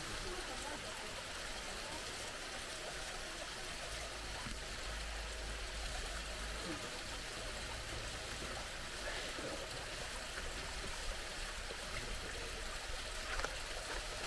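Water running steadily, cascading over rocks into a pool, with a faint low rumble for a few seconds in the middle.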